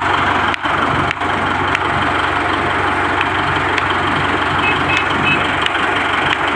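Bulldozer's diesel engine running steadily at idle, a deep even hum. About five seconds in, three short high beeps sound over it.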